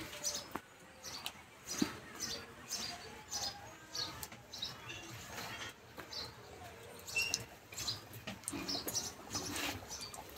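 Stuffed potato kochuris frying in a karahi of moderately hot oil: light, irregular crackling and sizzling as more are slipped in.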